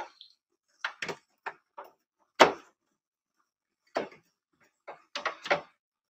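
Screwdriver clicking and knocking against a CRT monitor's plastic back casing as its screws are taken out: a string of separate sharp knocks, the loudest about two and a half seconds in.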